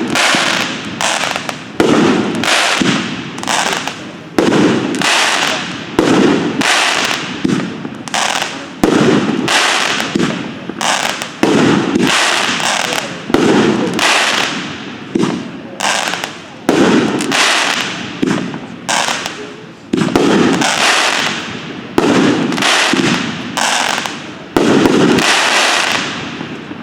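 Red Rhino Pyro Gal 200-gram fireworks cake firing, a sudden bang about every second, each followed by a wash of crackling.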